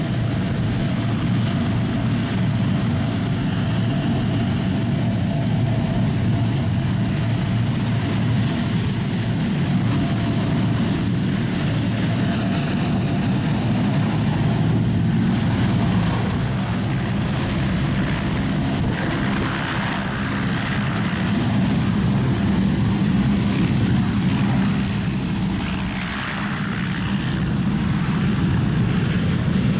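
Four Allison T56 turboprop engines of a C-130H Hercules running as it taxis away: a steady deep propeller drone, with a thin high whine over it in the first half.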